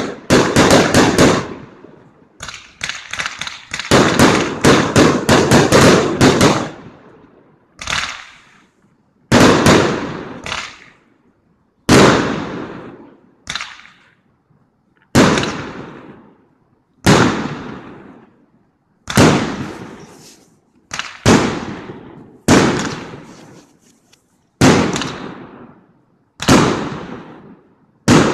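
Aerial fireworks bursting overhead: a rapid flurry of sharp bangs and crackles for the first six seconds or so, then single loud bangs about every two seconds, each trailing off over a second.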